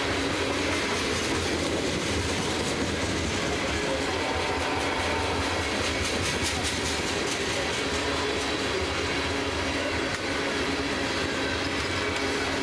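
Loaded tank cars of a freight train rolling past at trackside, a steady rumble of steel wheels on rail, with a run of rapid clicks about halfway through.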